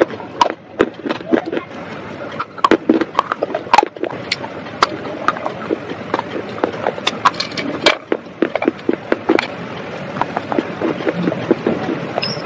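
Chewing and crunching baked clay: a rapid, irregular run of sharp crunches and crackles as pieces of small clay pots are bitten and ground between the teeth.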